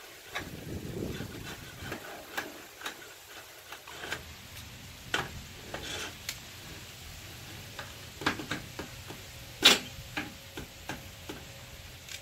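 Irregular clicks and taps of hand work as insect screen mesh is fitted into a screen-enclosure frame, with one sharp click about ten seconds in.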